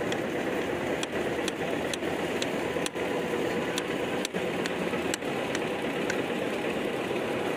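Kitchen knife chopping cucumber on a wooden cutting board: a string of short, sharp taps roughly every half second, over a steady hum of street noise.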